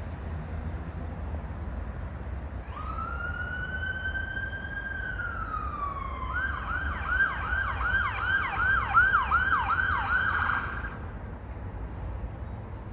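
Police car siren: a long held wail comes in about three seconds in and falls away, then switches to a fast yelp of about three sweeps a second and stops abruptly near the end. A low steady rumble runs underneath.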